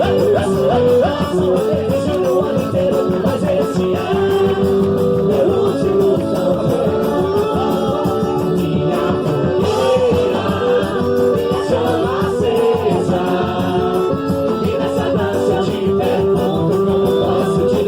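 Quadrilha junina music: a song with singing over instruments and a steady beat.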